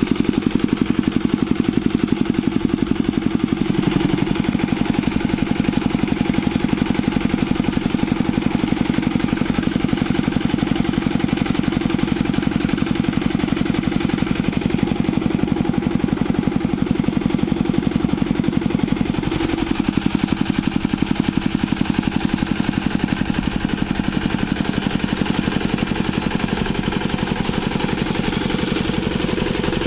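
Single-cylinder diesel engine of a two-wheel rotary hand tractor running steadily under load, a fast, even pulse, as its rotary tiller works wet paddy mud.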